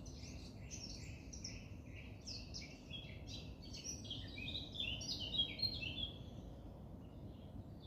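Small forest birds singing, with many quick, overlapping short chirps that are busiest in the middle, over a low, steady background noise.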